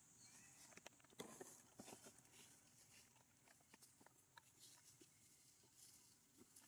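Near silence: faint outdoor ambience with scattered soft clicks and ticks.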